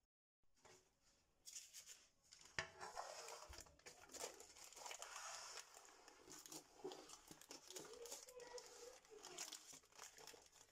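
Paper crinkling and rustling as rolled-out pastry dough is lifted and pressed into a metal tart tin, starting a second or so in, with many small irregular crackles.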